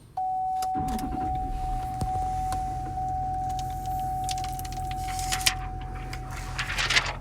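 The 2016 GMC Sierra 2500HD's Duramax V8 turbodiesel starts and settles into a steady idle. A steady high electronic tone sounds over it until near the end, when there is a brief clatter.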